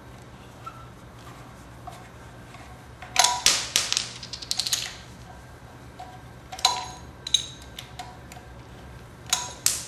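Metal cap-removal tool clicking and clinking against the threaded crankshaft and timing hole caps and the aluminium side cover of a Honda 250 engine as the caps are unscrewed. Clusters of sharp clicks come about three seconds in, again near seven seconds, and near the end.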